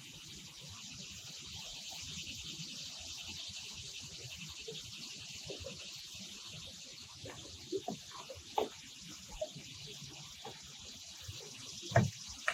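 Steady high-pitched drone of insects, with a few soft knocks about eight seconds in and again near the end.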